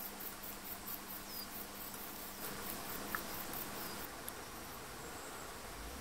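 Faint outdoor ambience of insects chirping in a fast, even pulse, about four a second, fading after two or three seconds.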